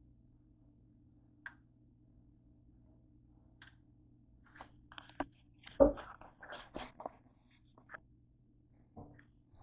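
A bowl of Wheat Thins crackers and donuts set down on a wooden desk, with one thump about six seconds in and rustling, knocking crackers around it. A few faint clicks come before it, over a steady low room hum.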